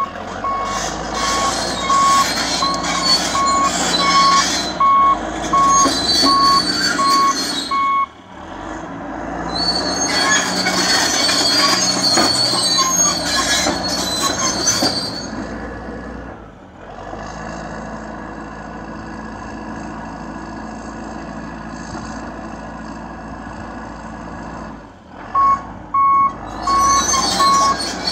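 Crawler dozer with a rear swing grapple reversing, its backup alarm beeping about twice a second over the diesel engine and clanking steel tracks. The beeping stops for the middle part, where the tracks clank and squeal, then the engine runs on steadily. The beeping starts again near the end.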